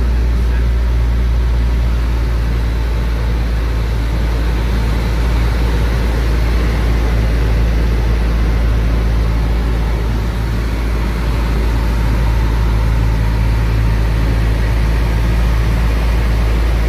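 Cessna 172's piston engine and propeller running steadily in flight, heard from inside the cabin as a loud, even drone with a deep low hum.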